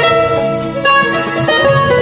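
Mandolin playing a slow melody: held, picked notes, with a new note struck about a second in and another near the end.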